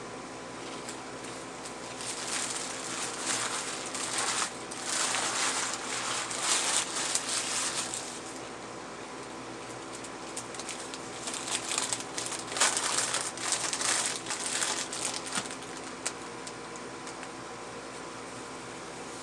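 Food packaging crinkling and rustling close to the microphone in two spells of several seconds each, over a steady background hum.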